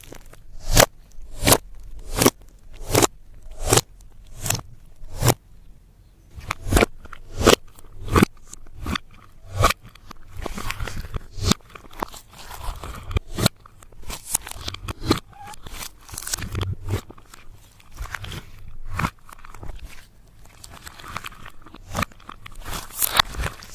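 Slime being mixed with crushed eyeshadow and makeup, making crunching and crackling sounds: sharp clicks about one and a half a second at first, giving way to denser, irregular crackling about halfway through.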